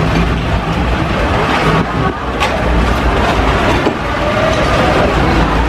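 A boat's motor running with a steady low rumble, with one short click about two and a half seconds in.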